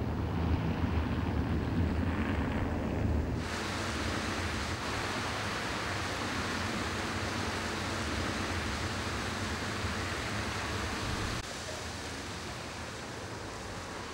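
Low rumble for the first few seconds, then a steady splashing hiss of fountain jets that starts suddenly and eases a little near the end.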